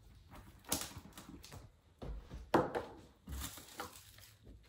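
Scissors snipping and plastic wrapping crinkling as the packaging on a rolled rug is cut open. It comes as a string of irregular clicks and rustles, loudest about two and a half seconds in.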